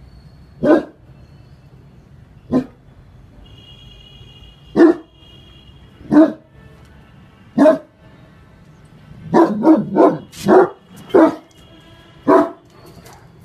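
Great Dane barking: single barks every second or two, then a quick run of five barks about nine seconds in, and one more near the end.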